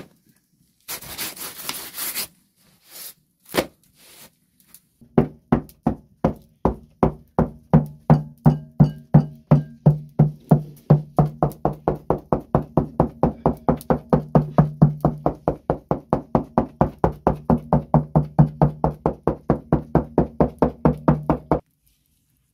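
Fingertips tapping dimples into flatbread dough on a wooden board: an even run of soft knocks, about three or four a second, that starts about five seconds in and stops shortly before the end. A brief rustle comes first.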